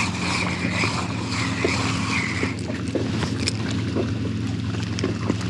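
A steady low machine hum made of several tones. Over it, a pulsing high-pitched buzz stops about halfway through, with a few faint scattered clicks.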